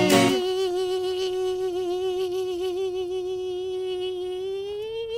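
The sung jingle's guitar stops a moment in, leaving a single voice holding one long note with a wavering vibrato. Near the end the note slides up a step and is still held.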